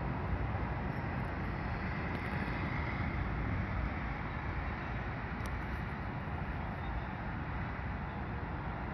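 Steady low rumble of a large car ferry's machinery as it manoeuvres alongside the quay, with wind noise on the microphone.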